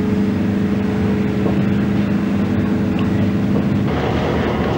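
Diesel locomotive running steadily, a droning hum; about four seconds in the sound turns rougher and noisier.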